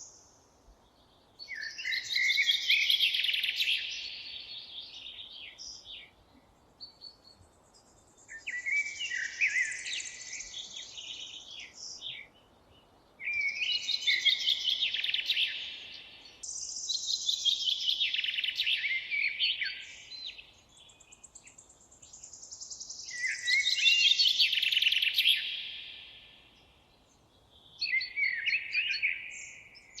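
Songbird singing: about six repeated song phrases, each lasting two to four seconds with falling trills, separated by short pauses.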